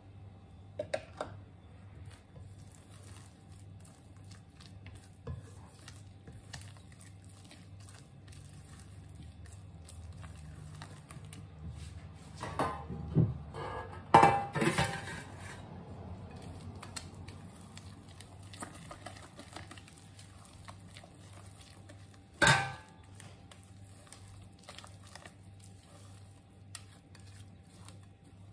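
Cookware handled on a wooden table: a few light knocks of a spatula against a glass mixing bowl near the start, a cluster of louder clanks about halfway through as a metal loaf pan is brought out, and one sharp knock about two-thirds of the way in.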